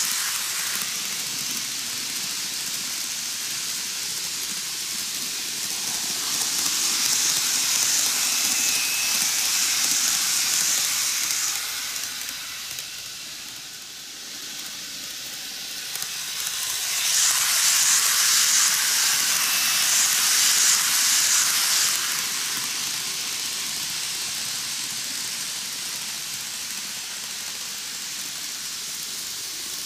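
N-gauge model trains running on curved track: a steady, high-pitched whirring hiss from their small motors and wheels on the rails. It swells twice as trains pass close and dips briefly about fourteen seconds in, when the track nearest the camera is empty.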